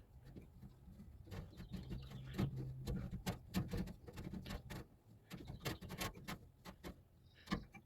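Irregular light clicks and taps of small parts being handled, over a faint low hum.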